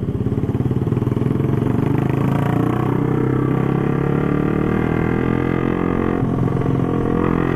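Motorcycle engine running at a steady speed while riding, with a brief dip about six seconds in, over wind and road noise.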